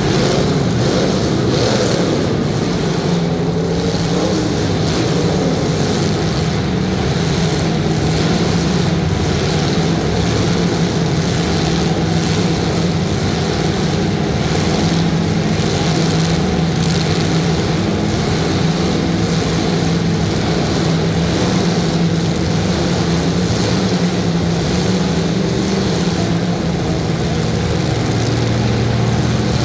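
Demolition derby car engines running and revving.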